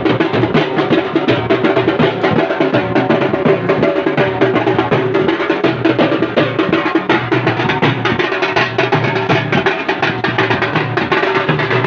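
Several large double-headed dhol drums beaten in a fast, unbroken rhythm, loud and continuous.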